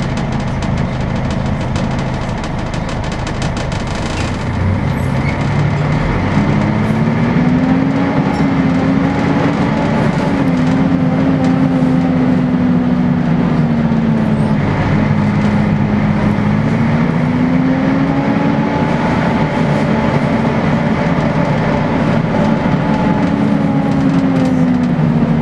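Volvo B10BLE bus's rear-mounted engine and cooling fan, heard from inside the saloon, running loud. A steady drone is joined about six seconds in by a whine that rises, wavers, drops briefly about halfway through, then climbs again.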